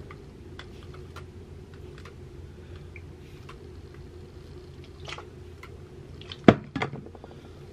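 Small clicks and taps from hair tools and product bottles being handled, over a steady low hum. About six and a half seconds in comes one sharp, loud click, followed by a few quick clicks, as a black product bottle is handled.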